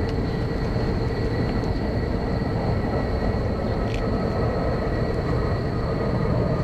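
Steady mechanical drone with a dense low rumble and a few steady high tones, like machinery running without change. A faint click comes about four seconds in.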